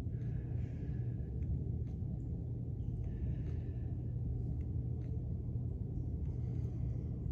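Steady low rumble or hum with no clear events, with a few faint, brief higher sounds over it.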